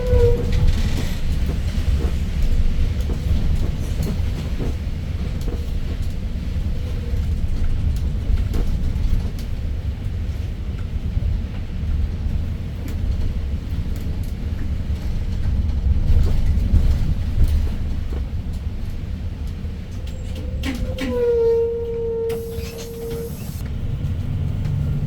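Daewoo BS090 city bus with a GL08P CNG engine driving, a steady low rumble of engine and road noise with scattered rattles. A brief steady tone sounds for about two seconds near the end.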